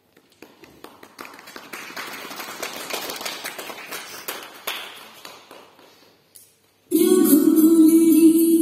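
Audience applause that swells and then dies away over about six seconds. About seven seconds in, loud music starts suddenly over a steady low drone.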